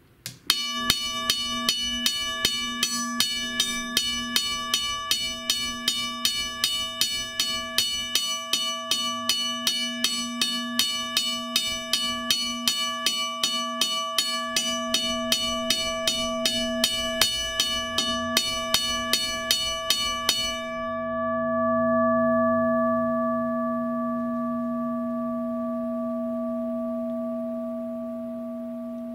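Western Cullen Hayes Model 333 railroad crossing bell sounding: its electric hammer strikes the gong rapidly and evenly, about two to three strikes a second, for about twenty seconds. The striking then stops and the gong's ring fades slowly.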